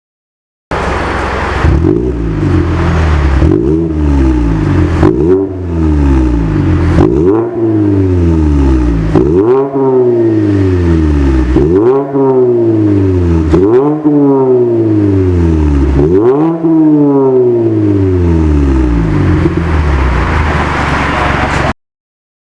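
Mazda 3 Skyactiv-G 2.0 inline-four engine revved repeatedly through an aftermarket full stainless exhaust system. Each rev rises sharply and falls back, about every two seconds. The sound starts a little under a second in and cuts off suddenly near the end.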